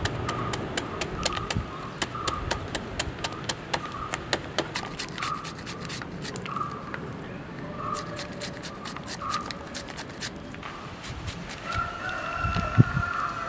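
A knife chopping raw jackfruit finely, with quick sharp strokes about three or four a second that thin out after a few seconds. Chickens cluck with short calls repeating under it, then give a longer call near the end, and a single thump comes just before the end.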